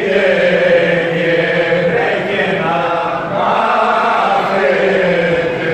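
A group of men singing a Greek folk song together, unaccompanied, in long held notes, with a short break between phrases about two seconds in.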